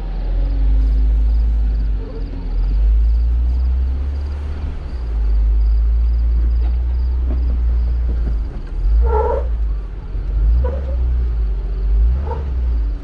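Jeep Wrangler JL Rubicon driving off-road, a steady low rumble from the engine and drivetrain. Three short pitched squeaks sound about nine, ten and a half and twelve seconds in, the first the loudest.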